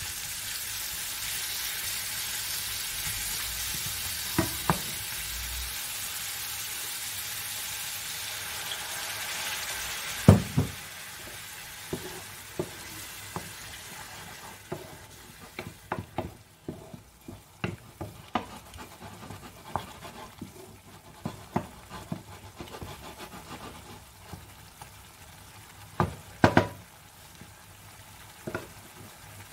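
Mushrooms, onion and parsnip sizzling in oil in a non-stick frying pan while a wooden spoon stirs them, scraping and knocking against the pan. The sizzling dies down about ten seconds in, and the spoon's knocks are loudest about ten seconds in and again near the end.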